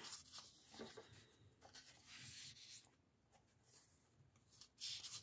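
Faint paper rustling as the pages of a printed book are handled and turned by hand, with a few soft swishes: one near the start, one around two seconds in and one near the end.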